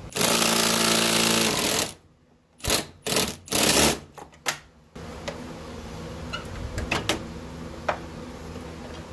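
Handheld power tool, such as an electric ratchet, whirring in one run of about two seconds and then several short bursts, unbolting a fitting on the car's AC lines. A few light clicks and a steady low hum follow.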